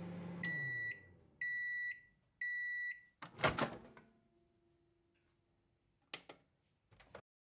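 Microwave oven hum winding down, then three long beeps marking the end of the cooking cycle. The door clunks open, and a few light clicks follow near the end.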